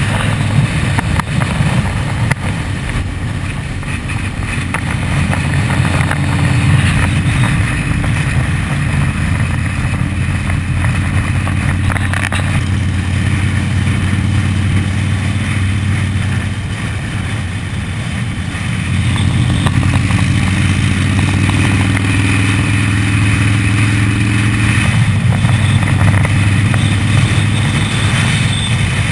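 Motorcycle engines running steadily at road speed, with wind rushing over the microphone. The engine sound eases off for a couple of seconds past the middle, then picks up again.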